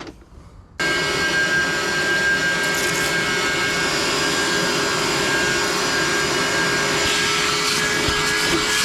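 A motor-driven upholstery cleaning machine switched on about a second in, then running steadily and loudly with a constant whine.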